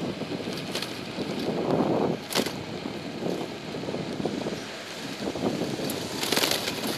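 Bicycle riding along a street heard from a camera mounted on the bike: wind on the microphone and road noise, with knocks and rattles from the bike and the delivery box carried in front. A sharp clack about two and a half seconds in, and a louder burst of rattling near the end.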